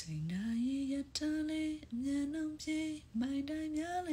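A woman singing unaccompanied, a slow melody of long held notes with smooth slides between them and short breaths between phrases.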